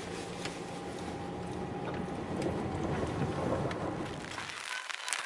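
Vehicle rumble with freezing rain and sleet ticking on the car; about four and a half seconds in the low rumble drops away, leaving a crackle of sharp ticks.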